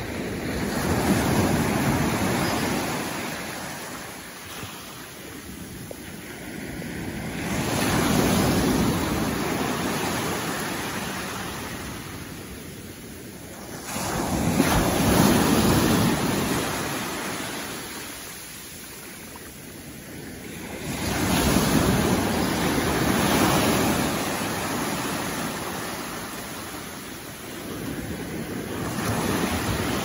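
Small waves breaking and washing up a sandy beach close to the microphone. A surge of surf comes about every seven seconds, five in all, each swelling and then fading away.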